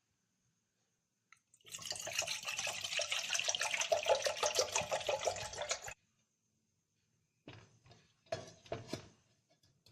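Water running for about four seconds and stopping suddenly, then two shorter gushes near the end.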